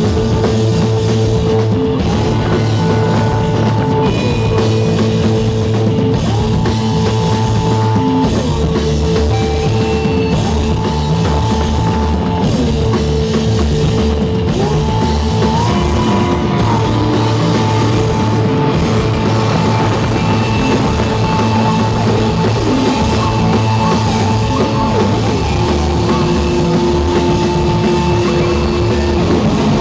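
Live rock band playing at a steady loud level, with drum kit and electric guitar. Long held melodic notes slide from one pitch to the next.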